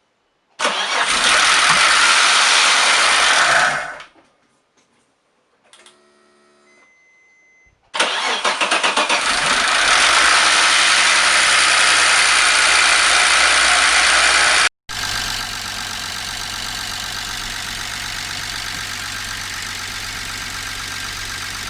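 A used 2.6-litre car engine being started: a few seconds of loud cranking that does not catch, a pause, then a second start that begins with fast pulsing and settles into loud, steady running. After a sudden break it idles steadily. The engine still has the hard knock the mechanic wants to see go away as the hydraulic lifters pump up with oil.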